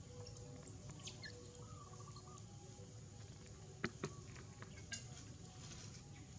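Baby monkey giving faint high squeaks and a short wavering squeal, with two sharp clicks about four seconds in.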